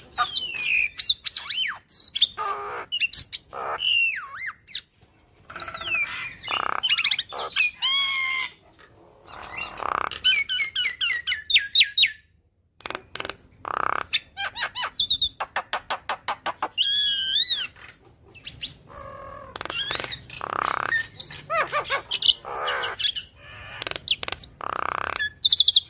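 Javan myna singing a long, varied chattering song: whistled notes and rising and falling glides mixed with harsh squawks and a rapid clicking rattle about halfway through, broken by short pauses.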